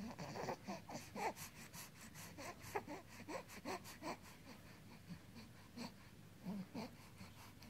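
Infant making faint, short vocal sounds and breaths, with small mouth clicks and smacks in between, and one short pitched sound a little before the end.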